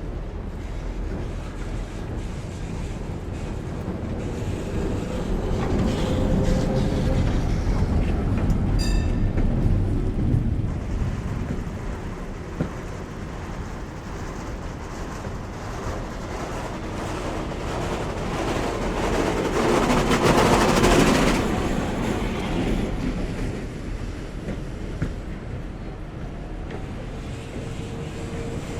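Vintage vehicles driving past one after another, their engines and running gear a steady rumble. Two pass-bys swell up, the louder one about twenty seconds in. A short high-pitched signal, a horn or bell, sounds briefly about nine seconds in.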